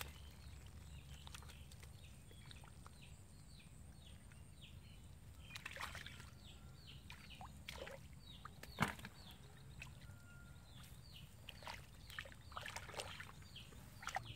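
Water sloshing and splashing in a flooded rice field as fish are caught, with a sharp splash about nine seconds in and smaller ones around six and thirteen seconds. Short high chirps repeat throughout.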